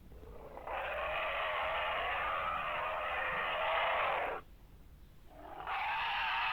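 Gojirasaurus dinosaur roar sound effect: two long roars, the first lasting nearly four seconds, the second starting about five seconds in and still going at the end.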